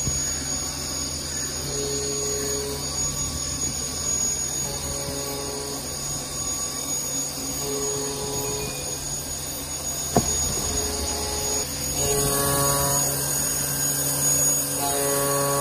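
Hurco VMX64/40T CNC vertical machining centre running a program with its spindle turning: a steady machine hum and hiss, with pitched cutting tones coming and going. There is a sharp click about ten seconds in, and the machining sounds louder from about twelve seconds on.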